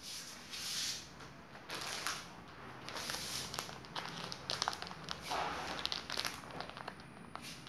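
Clear plastic bag crinkling and rustling as it is handled, with irregular sharp crackles.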